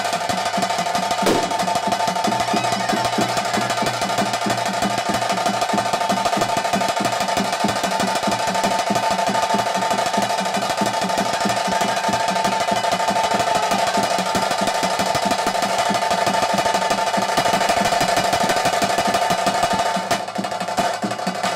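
Fast, continuous ritual drumming on cylindrical drums for a bhuta kola dance, the strokes running in a dense roll. A steady high held tone at two pitches sounds over the drums and dips briefly near the end.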